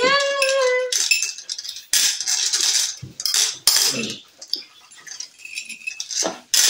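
Small coated candies clicking and rattling against plates and a bowl as they are picked up and set down. A child's voice holds one long high note at the start.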